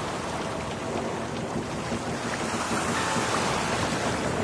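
Steady rush of wind and ocean surf.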